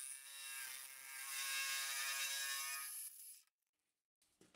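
Small milling machine running with a steady whine while a helical end mill cuts a pocket in a metal block. The sound cuts off suddenly about three and a half seconds in.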